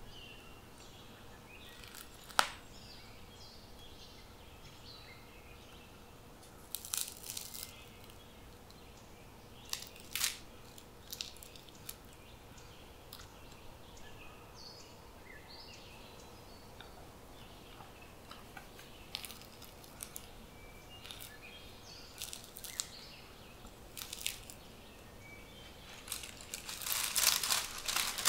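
Crusty homemade wholemeal bread crackling and crunching in short, scattered bursts as it is handled and broken apart by hand. Near the end a longer stretch of crinkling from the plastic baking bag as the loaf is lifted out of it.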